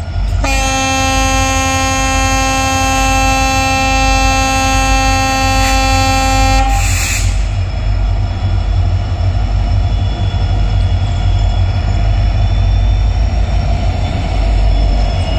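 Indian Railways WDP4B diesel locomotive sounding its horn in one long steady blast of about six seconds, then the low rumble of the locomotive and train running past.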